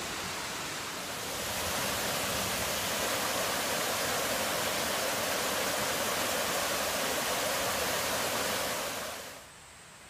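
Rushing water of a small rainforest stream spilling over a rocky cascade, a steady rush that grows louder about a second in and drops away near the end.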